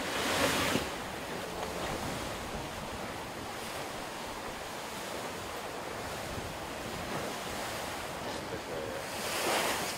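Wind and rushing sea water around a racing yacht under sail, with wind buffeting the microphone. There are two louder surges of water, one right at the start and one just before the end.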